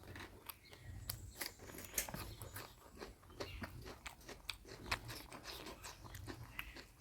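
Close-miked eating: a person biting and chewing a mouthful with mutton curry, many irregular crunches and wet mouth clicks several times a second.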